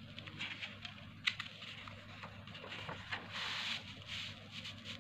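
A sheet of paper being folded in half and its crease pressed flat by hand: rustling and scraping, with a sharp crackle about a second in and a longer sliding rasp past the middle. A low steady hum runs underneath.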